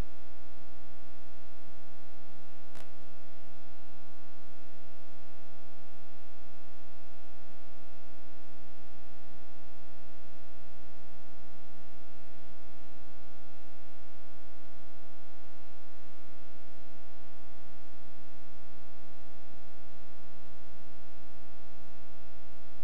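Steady electrical mains hum, a buzz with many evenly spaced overtones that never changes, on the track of a silent film transfer. A single sharp click about three seconds in.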